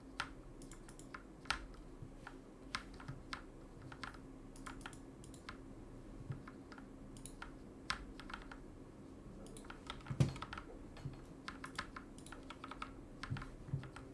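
Redragon Kumara mechanical keyboard fitted with Akko Matcha Green switches, keys pressed in irregular runs of short, soft clicks, with one louder knock about ten seconds in. The switch swap was made to quiet the keyboard.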